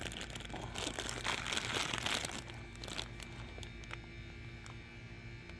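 Crinkling and rustling, loudest in the first two and a half seconds, then dying down to a faint low hum with a few soft clicks.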